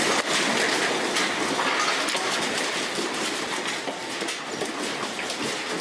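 Dense, continuous rattling and clattering of many loose objects being shaken, like building contents during an earthquake, fading slightly.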